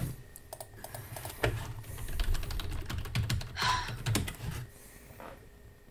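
Typing on a computer keyboard: quick, irregular key clicks as a chat message is typed out, thinning out toward the end.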